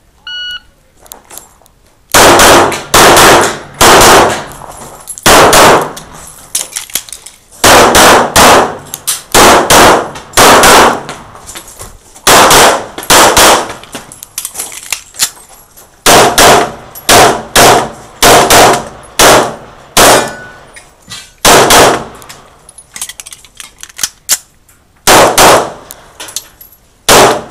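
Shot-timer start beep, then a 9mm CZ 75 SP-01 pistol firing dozens of shots in fast strings, with pauses of a second or two between them while the shooter moves through a practical-shooting stage.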